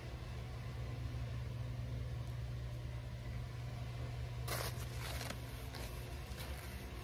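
Steady low hum, with two short rustles about four and a half and five seconds in as a wipe is rubbed over a cat's fur.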